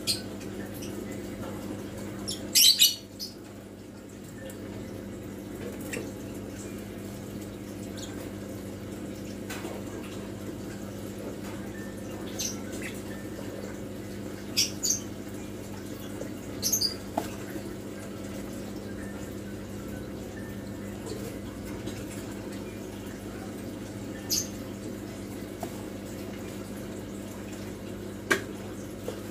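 Steady low electric hum of aquarium equipment, with water trickling and a scattering of sharp drips and splashes at the surface of a fish tank. The loudest is a short cluster of splashes about three seconds in; single ones follow every few seconds.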